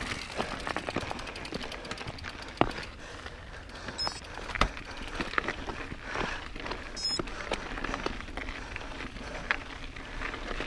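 Mountain bike riding over a rocky trail: a continual rattle of clicks and knocks as the tyres and bike hit rock, with a couple of sharper knocks standing out.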